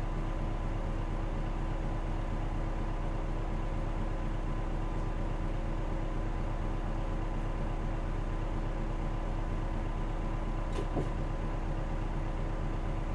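A 2001 city bus's diesel engine running steadily, heard from inside the passenger cabin as a constant low drone with some steady whining tones. A single brief click sounds near the end.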